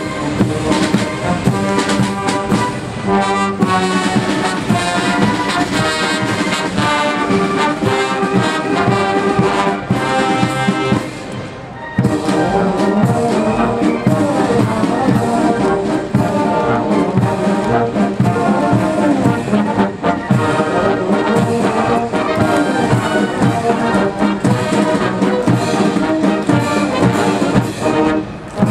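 Military brass band playing a march with a steady beat; the music thins briefly about eleven seconds in, then picks up again.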